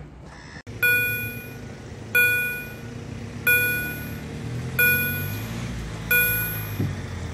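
Level crossing warning bell striking about once every 1.3 seconds, five clear ringing strikes that each fade away, starting about a second in, while the crossing's barriers come down. A low steady rumble sits underneath.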